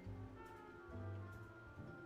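Quiet background music: held melody notes changing every half second or so over a pulsing bass line.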